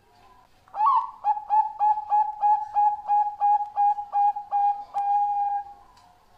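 Zebra dove (Bangkok-bred perkutut) singing: an opening rising note, then a quick run of about a dozen short clipped coos, roughly four a second, ending on one longer held coo.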